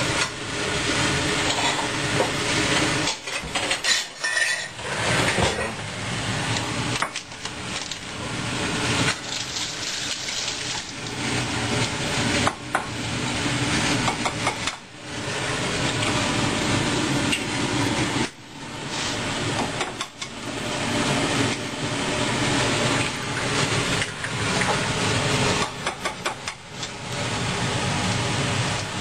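Dishes, pots and utensils clattering as they are handled, over a steady noise that drops out briefly several times.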